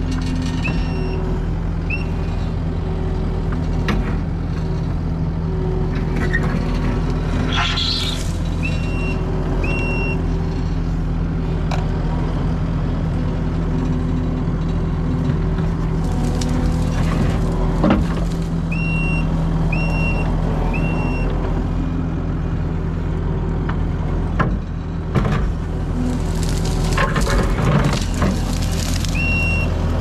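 Kubota SVL compact track loader's diesel engine running steadily under load as the bucket pushes a large rock. Short high beeps of its backup alarm sound in twos and threes every several seconds, and brief scraping of bucket, rock and soil comes a few times.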